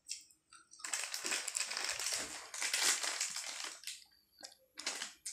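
Crunching a Lay's potato chip between the teeth. A dense run of crisp, crackling chews lasts about three seconds, then a brief burst comes near the end.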